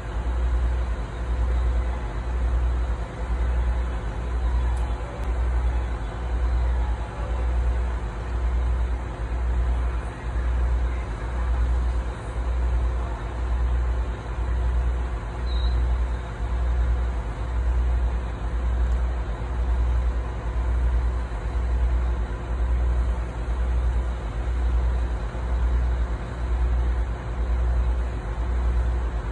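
Diesel engine of a KiHa 141-700 train idling while standing at the platform, a steady low throb that swells and fades at an even beat of roughly once a second.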